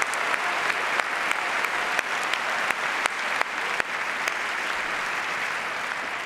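Large theatre audience applauding steadily, with a few sharper individual claps standing out from the dense clapping.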